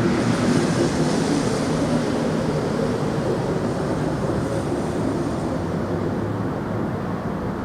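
A loud, continuous roar of unidentified origin, like a jet flying low, with a steady low hum running under it. It eases off slightly over the few seconds.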